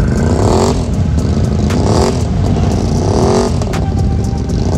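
Off-road engines running with a steady low rumble, one of them revved hard three times in rising surges as an ATV churns through a mud hole.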